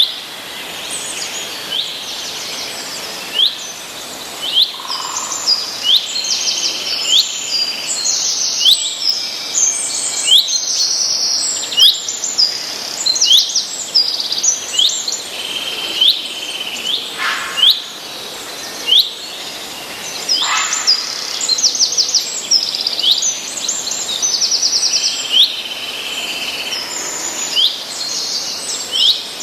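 Several small songbirds chirping and calling throughout: many short high notes, quick rapid trills, and some repeated down-slurred chirps, over a steady faint background hiss.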